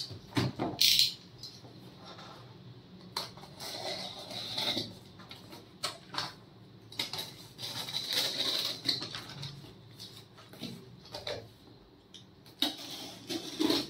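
A small blade scraping and slicing through packing tape on a cardboard parcel, with tape and paper rustling and tearing in short scratchy strokes that come and go.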